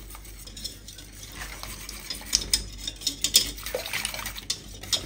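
Wire balloon whisk stirring pear purée, milk and cornflour in a stainless steel saucepan: a soft swishing broken by irregular clicks of the wires against the pan, busier in the second half.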